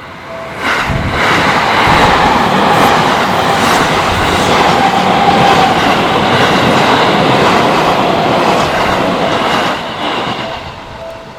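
Electric commuter train of the Seibu Ikebukuro Line passing close over a level crossing, its wheels clattering and clicking over the rail joints. It comes up loud about a second in and fades near the end. The crossing's warning bell rings steadily just before the train arrives and is heard again as it dies away.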